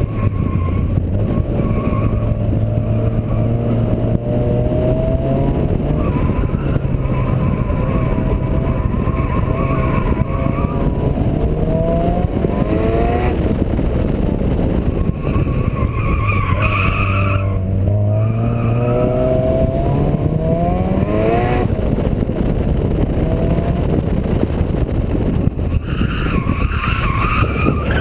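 Turbocharged Honda D16 four-cylinder engine in a Civic at full track pace. Its note climbs hard twice and drops back after each run. The tyres squeal several times through the corners.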